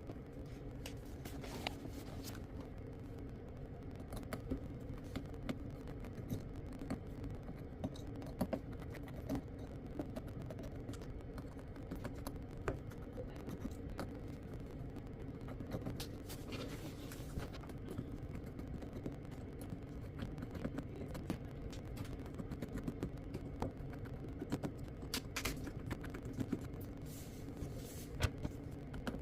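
Scattered light clicks, taps and scrapes of small tools and parts during a device disassembly, over a steady low hum.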